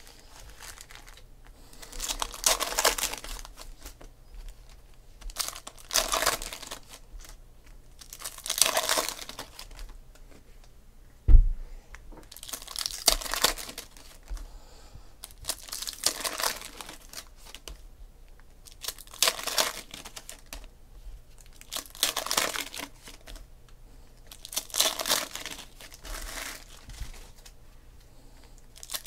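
Foil trading-card pack wrappers being torn open and crinkled one after another, a rustling burst about every three seconds, about eight in all. A single sharp thump about a third of the way through.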